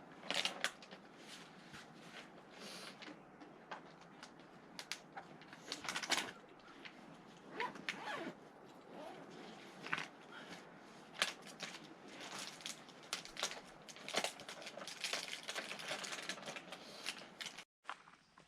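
Hikers' footsteps scuffing and crunching on a rocky trail, irregular, over a faint steady outdoor hiss; the sound cuts out for a moment near the end.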